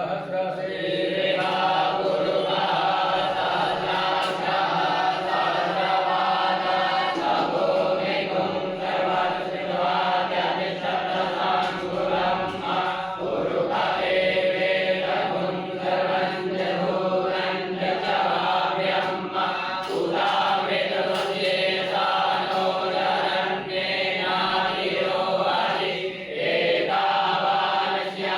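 A group of voices chanting Hindu mantras together in a steady, continuous recitation.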